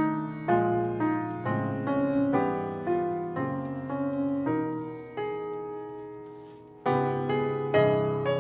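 Piano playing a slow passage of struck chords, each one fading after it is played; about five seconds in, one chord is left to ring and die away for nearly two seconds before the next chords come in.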